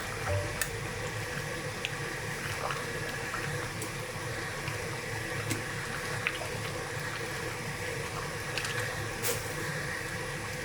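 Beef bourguignon stew bubbling in a pot: a steady simmer with scattered small pops.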